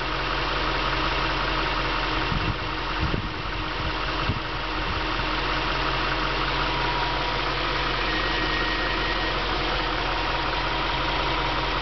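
Car engine idling steadily, with a few brief low thumps a couple of seconds in.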